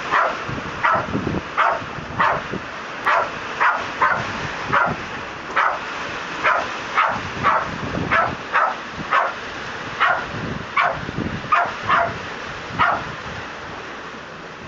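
Jack Russell terrier barking over and over, short sharp barks at about one or two a second, over the steady hiss of rain.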